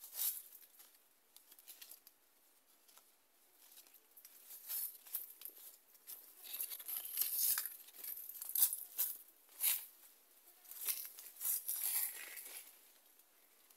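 Crisp rustling and crackling of leaves and dry vegetation as someone moves through the soursop trees, coming in irregular clusters of short crackles with quiet gaps between.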